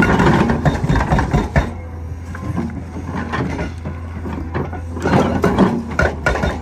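Cat 385C excavator's diesel engine running under a steady hum while its Epiroc HB 10000 hydraulic hammer knocks into the ground in rapid, irregular blows, heaviest in the first two seconds and again from about five seconds on.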